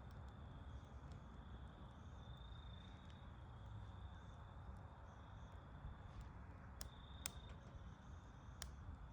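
Bonfire of burning wood crackling faintly, with a few sharp pops late on, over a low rumble, while an insect trill runs high and steady in the background.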